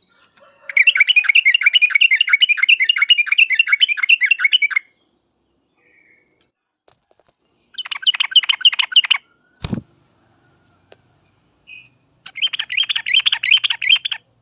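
Yellow-vented bulbul (trucuk) singing in three bursts of fast, rattling repeated notes: a long run of about four seconds, then two shorter ones. A single sharp click falls between the second and third bursts.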